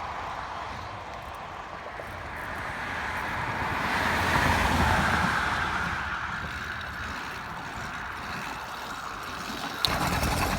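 Wind buffeting the microphone on a moving 80cc motorized bicycle, with the bike's small engine running underneath. The wind swells for a couple of seconds midway, and near the end there is a click and the engine gets louder.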